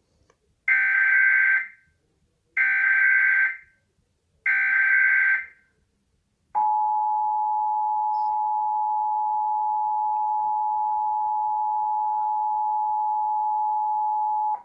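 Emergency Alert System tones encoding a Required Monthly Test: three short screechy bursts of SAME header data, about a second each and a second apart, then the steady two-tone EAS attention signal held for about eight seconds before it cuts off.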